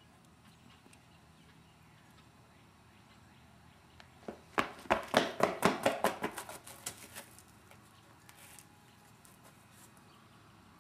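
Quick footsteps of sneakers on a concrete driveway: about a dozen sharp steps, three or four a second, starting about four seconds in and fading out over a few seconds, with a faint outdoor hiss before and after.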